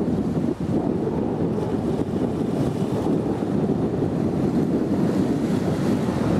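Steady wind buffeting the microphone, mixed with the wash of choppy river water.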